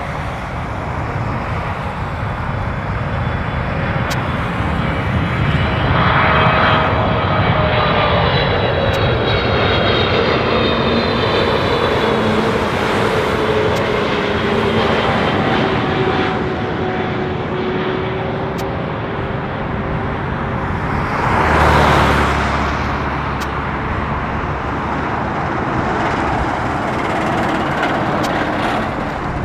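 Boeing 777F freighter's twin GE90 turbofans on landing approach, passing low overhead: a steady jet rumble with a whine that falls in pitch as it goes by. About three-quarters of the way in a brief louder rush rises and fades, from a road vehicle passing close.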